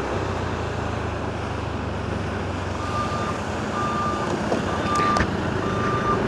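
Steady hum of a car driving. From about three seconds in, an electronic warning beeper starts, sounding one clear tone about once a second and getting louder.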